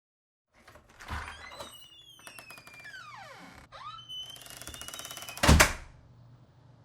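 A series of sound effects: a thud, several falling whistle-like glides, a fast even rattle, then a loud thump.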